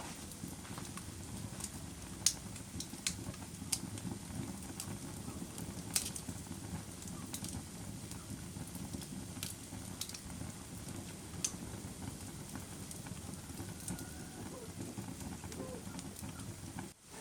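Wood fire burning in a fireplace: a steady low rumble of flames with scattered sharp crackles and pops, the loudest about two seconds and six seconds in.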